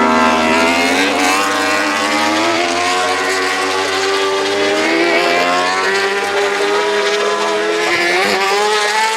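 Yamaha YZF-R1 World Superbike race bike's inline four-cylinder engine with Akrapovic exhaust at high revs under acceleration, its pitch climbing steadily for several seconds and climbing again near the end.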